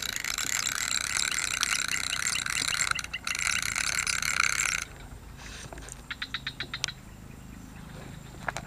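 Fishing reel being cranked quickly to bring in a hooked fish, its gears whirring with a fine ratcheting click. The cranking stops about five seconds in, and a short run of quick clicks follows about a second later.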